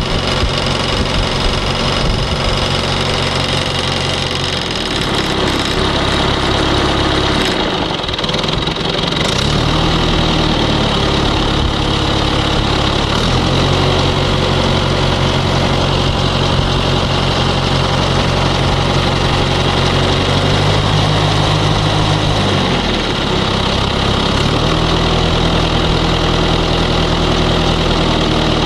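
John Deere 2130 diesel engine running steadily, its tone shifting several times, with intermittent rapid knocking and nailing, more machine gun than heavy thumping, coming from the fan end of the engine.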